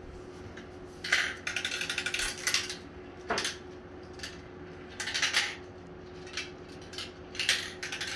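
Glass marbles clattering and rattling down a plastic marble run toy, in several spells of rapid clicking with short pauses between.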